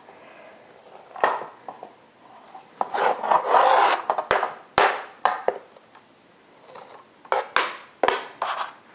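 A knife scraping chopped onion across a cutting board, in several scratchy strokes. A few sharp knocks of kitchenware being set down and handled come about four, five and eight seconds in.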